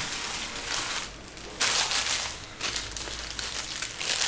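Empty foil trading-card pack wrappers crinkling as they are handled and crumpled, in irregular crackly bursts with the loudest rustle a little under two seconds in.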